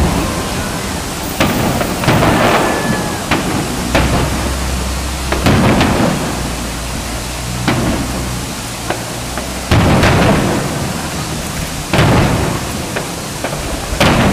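Aerial firework shells bursting, about eight deep booms a second or two apart, each trailing off in a low rumbling echo.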